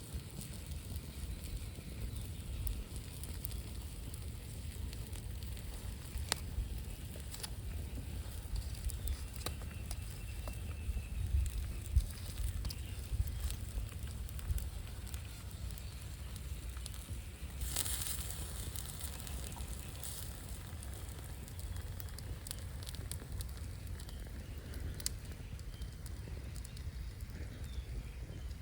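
Wood fire burning and crackling, with scattered sharp pops over a steady low rumble and a brief hiss a little past halfway.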